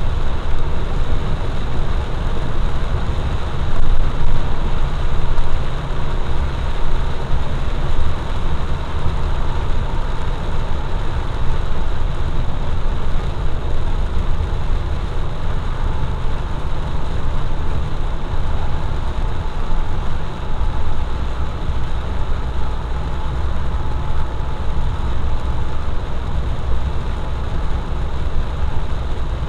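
Steady driving noise heard inside a vehicle on a rain-wet highway: a constant low engine and road rumble with an even hiss over it and no breaks.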